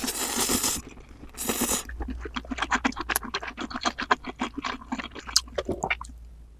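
Two long slurps of noodles in the first two seconds, then fast, wet chewing with several smacks a second, close to the microphone.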